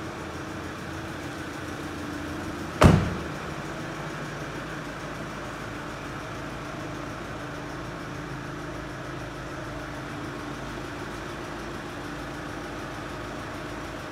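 Steady idle of a 2.0-litre turbo-diesel SUV engine, with one loud thump about three seconds in as a car door is shut.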